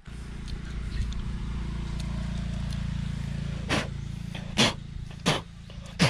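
A motor vehicle's engine runs steadily, growing louder to about halfway and then fading, as if passing by. A few short sharp sounds come in the second half.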